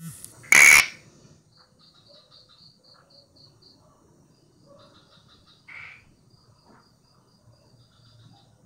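Frog calling: one short, loud call about half a second in and a second, quieter call near six seconds. Faint, high, evenly spaced chirps, about three or four a second, sound between the calls.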